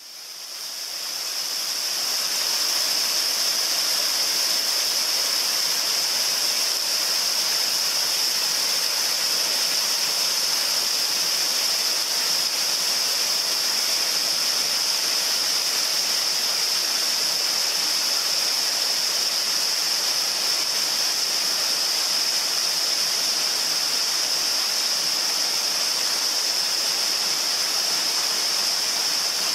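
Waterfall: a steady, unbroken rush of falling water that fades in over the first couple of seconds.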